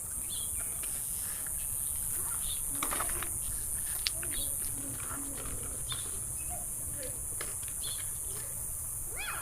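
Outdoor ambience: a steady high hiss and low rumble, with scattered short, faint bird chirps.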